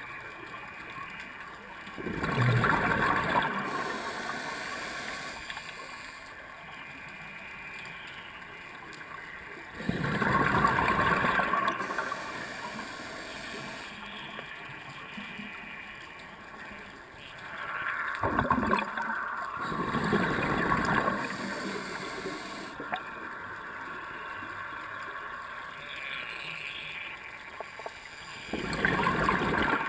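Scuba diver's regulator exhaust bubbles gurgling underwater, heard from close by through the camera housing. Four exhalations of a second or two each, about eight seconds apart, with a faint steady hiss between breaths.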